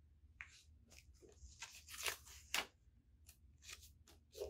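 Faint, irregular rustling and crinkling of a paper plate and construction-paper pieces being pressed and shifted by hand.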